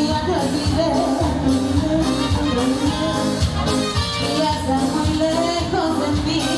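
Live Latin dance band playing through a PA, with sung vocals over drums and keyboards and a steady, driving beat.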